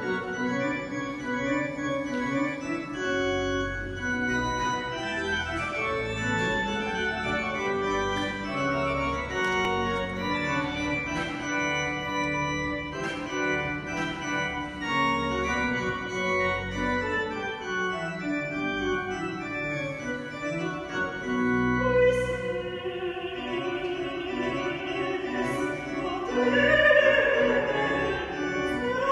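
Church organ playing slow sustained chords with deep pedal notes. About three-quarters of the way through, a woman's operatic voice comes in with a wide vibrato, singing over the organ.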